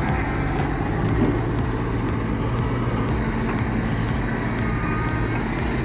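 An engine running steadily at a constant speed, an even drone with no change in pitch.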